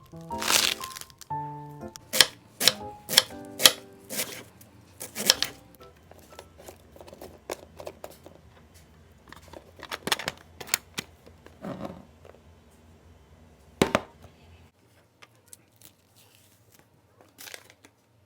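Background music for the first five seconds or so. A series of sharp clicks and taps from kitchen items or containers being handled runs through to about 14 s, with a single loud knock near 14 s.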